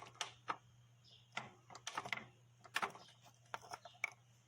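Irregular light clicks and taps from handling small motorcycle engine parts, over a steady low hum.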